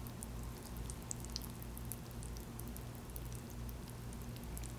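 Faint wet clicks and squelches of a thick chilli-tuna and cheese sauce being spooned over mi goreng noodles. The clicks come thickly for about two seconds, then thin out to a few, over a low steady hum.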